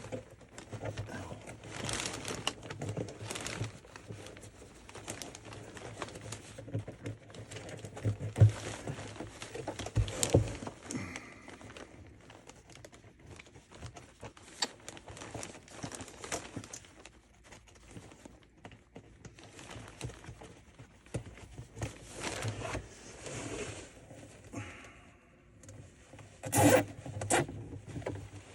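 Nylon zip ties being threaded through holes drilled in a plastic trash can and pulled tight, their ratchets zipping, amid irregular scrapes, clicks and a few sharper knocks of handling the can.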